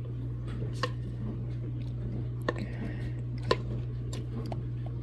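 A few light clicks and soft scraping of a spatula against a mixing bowl as thick pudding filling is scraped out into a pie shell, the loudest click about three and a half seconds in, over a steady low hum.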